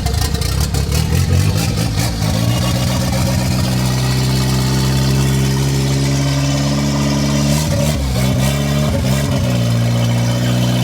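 Turbocharged VW Gol engine, jump-started after its battery went flat, running rough and uneven as it catches for about the first two seconds. It then settles into a steady idle, with a brief wavering in pitch around eight seconds in.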